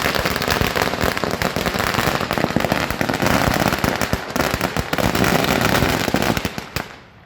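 A string of firecrackers going off in a rapid, continuous crackle of bangs that fades out near the end.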